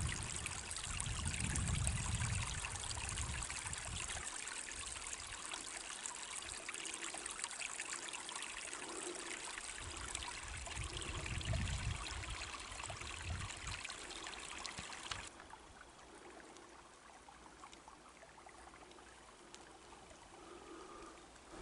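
A small creek running steadily through snowy, rocky ground. About fifteen seconds in, the sound cuts abruptly to a much fainter, steady hiss.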